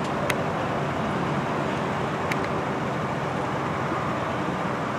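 Steady road-traffic noise, with two short clicks, one just after the start and one about two seconds later.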